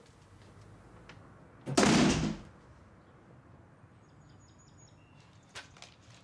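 A wooden front door being shut about two seconds in, one loud short thud. Faint bird chirps are heard afterwards.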